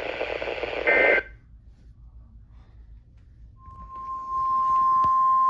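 Emergency Alert System broadcast audio: a short squawk of data tones about a second in, as the previous warning ends. After a pause, a steady electronic alert tone starts about three and a half seconds in, and more tones join it a moment later, forming the attention signal that opens the next warning.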